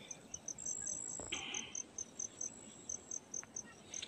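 An insect chirping in the grass: a faint, steady run of short high chirps, about five a second. A brief soft rustle comes just over a second in.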